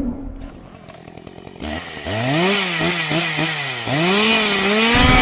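Chainsaw sound effect: the engine catches about two seconds in and revs up in rising pitch, wavers, drops back, then revs up again and holds a steadier high tone near the end.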